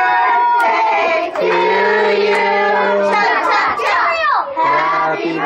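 A group of children singing together, with two long held notes.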